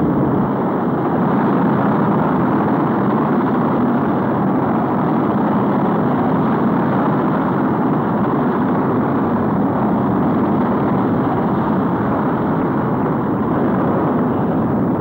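Saturn V first stage's five F-1 rocket engines firing at liftoff: a loud, steady, dense rushing noise with no let-up.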